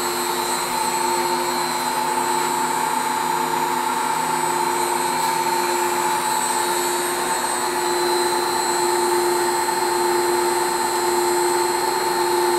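Lathe powered by a 2 hp three-phase motor on a Huanyang VFD, running steadily at one speed, with a steady high-pitched squeal from the VFD-driven motor over the motor and gear hum.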